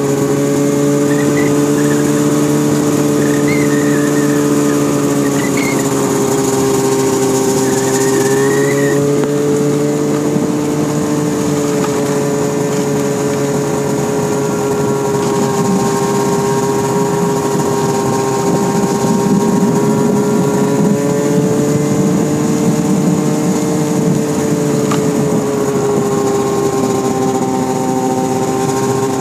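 Snowmobile engine running steadily under way, heard from aboard the machine, its pitch drifting gently up and down with the throttle and falling away near the end as it slows.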